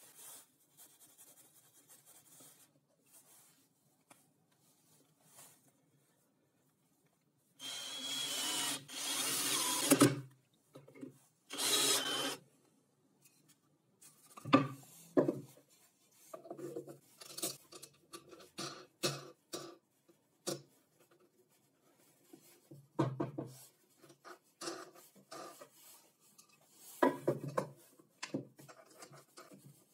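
Workshop assembly sounds: a power tool, most likely a cordless drill, runs in two short bursts about a third of the way in. Around it, wooden parts are knocked, set down and slid on a plywood tabletop.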